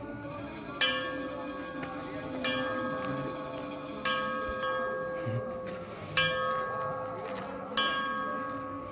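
A large bell tolling, struck five times at an even pace about every one and a half to two seconds. Each stroke rings on and is still sounding when the next one comes.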